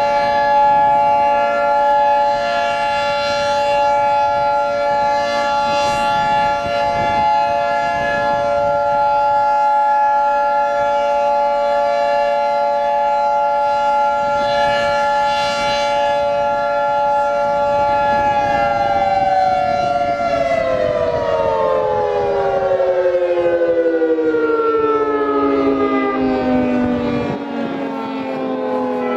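Outdoor warning sirens sounding a steady alert tone, several pitches held together as a chord, then winding down with the pitch sliding slowly lower over the last ten seconds or so.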